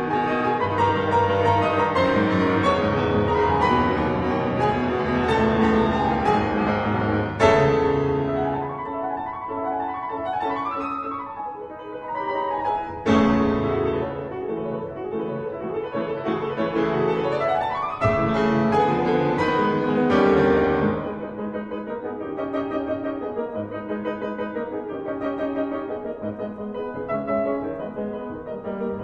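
Steinway concert grand piano played solo in a classical piece: loud struck chords about seven, thirteen and eighteen seconds in, with sweeping runs between them, then a softer passage over the last third.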